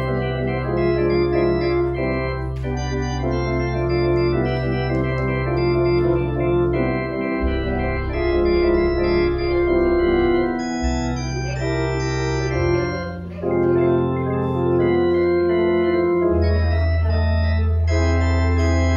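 Organ playing a postlude: full sustained chords with a moving upper line over long-held low bass notes that change every few seconds.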